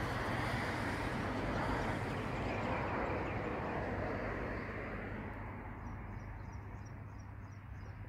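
Steady low outdoor rumbling noise that fades gradually in the second half, with a short run of small high bird chirps, about three a second, near the end.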